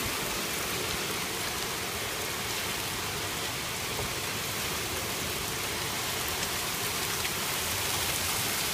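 Heavy rain mixed with penny-sized hail pelting a wooden deck and yard in a severe thunderstorm. It makes a steady hiss dotted with faint scattered ticks of stones striking.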